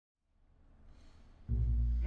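Faint hall room tone fading in, then about a second and a half in the double bass and cello start a low bowed note together and hold it.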